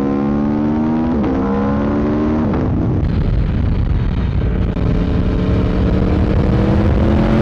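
Motorcycle engine pulling hard under acceleration, its pitch climbing steadily and dropping sharply twice in the first few seconds as the rider shifts up a gear, then rising again, over a heavy low rush of wind noise on the microphone.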